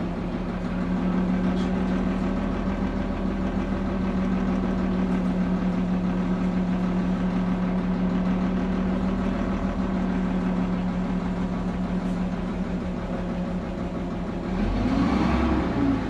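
DAF MB200 bus's straight-six diesel engine running steadily, heard inside the passenger cabin. Near the end the engine note rises and falls and briefly gets louder.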